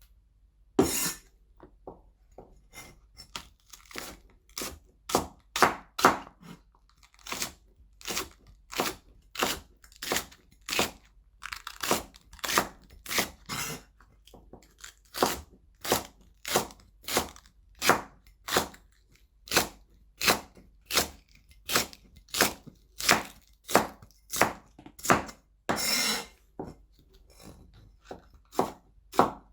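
Knife chopping celery stalks on a chopping board: a steady run of crisp, crunchy chops, about two a second, starting about a second in, with one longer crunch near the end.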